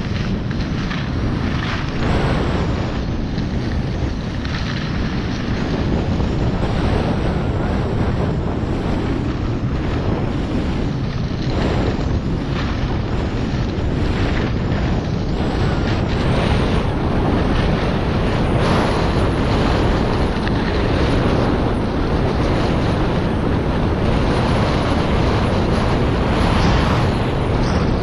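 Skis running fast down a slope of packed snow: loud wind noise buffeting the action-camera microphone, with the hiss and scrape of the skis on the snow surging every second or two.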